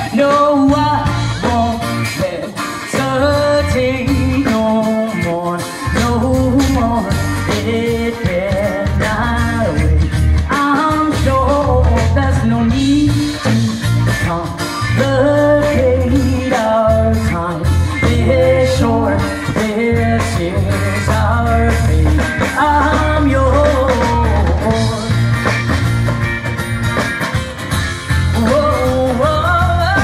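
Live band playing a song through a PA: a singer over electric and acoustic guitars, with a heavy bass line and a steady beat.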